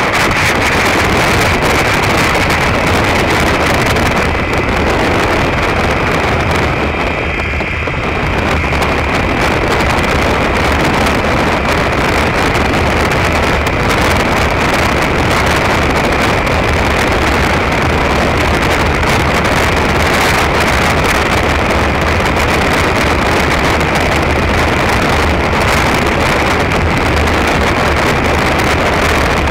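Derbi Terra Adventure 125 motorcycle running at road speed, its single-cylinder engine droning steadily under heavy wind rush on the microphone. The sound dips briefly about seven seconds in.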